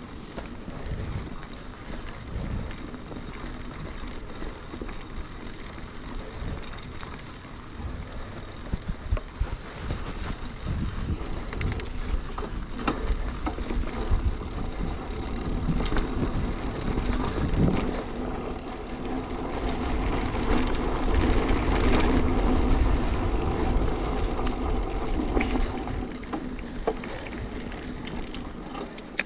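Mountain bike rolling along a dirt forest trail: tyres on packed dirt with a steady low rumble, and scattered clicks and knocks as the bike rattles over bumps. It grows louder through the middle stretch, then eases off near the end.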